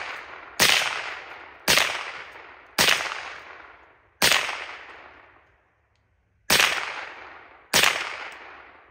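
Six shots from a Remington Nylon 66 semi-automatic .22 LR rifle, fired roughly a second apart with a longer pause after the fourth, each followed by a long fading echo.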